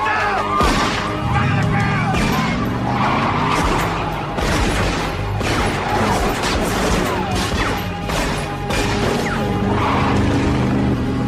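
Action-film soundtrack: music under a string of sharp pistol shots as several police officers fire handguns, the cracks coming irregularly through the whole stretch.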